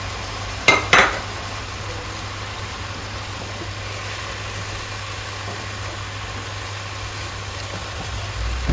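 Sliced mushrooms and green bell pepper sizzling steadily in a non-stick frying pan, with a low steady hum underneath. A wooden spatula knocks on the pan twice about a second in, then the stirring goes on quietly.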